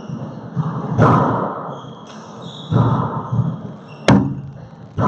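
Rubber handball being hit by hand and smacking off the court walls during a serve and rally, each hit loud and sudden with a booming echo in the enclosed four-wall court. The sharpest crack comes about four seconds in.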